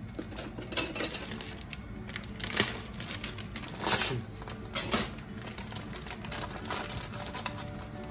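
Clear plastic food packaging crinkling and crackling in the hands as it is worked and pulled at, a package that will not open easily, with a few sharper crackles amid the irregular rustle.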